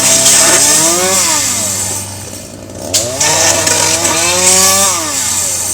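Gas chainsaw revving up and back down twice during tree trimming, over a steady low hum, with a sharp crack about three seconds in.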